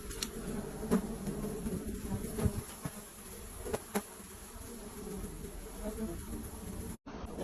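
Bees buzzing around a hive in a steady dense drone, with a few sharp clicks. The sound cuts out briefly near the end.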